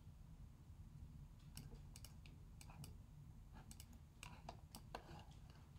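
Faint computer mouse clicks, irregular and scattered, some in quick pairs, more frequent in the second half.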